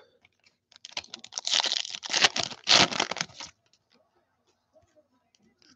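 Foil wrapper of a football card pack being torn open and crinkled, a fast crackling rustle starting about a second in and lasting roughly two and a half seconds.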